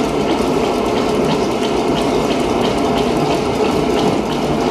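Working-model Fourdrinier paper machine running: a steady mechanical clatter of its gear drives and rollers, with a regular click about two or three times a second.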